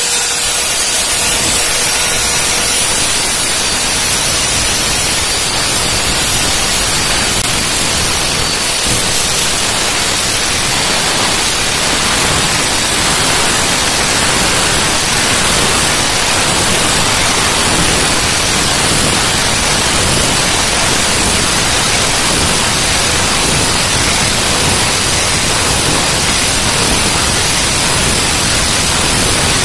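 Router spindle of a DIY CNC machine running steadily with its 2 mm straight bit engraving a fill pocket into foam: an even, unbroken hiss.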